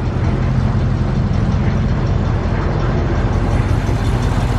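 1976 Cadillac Sedan deVille's 500 cubic-inch V8 idling with a steady, low exhaust note. It is louder than it should be because the back end of the exhaust has been cut off.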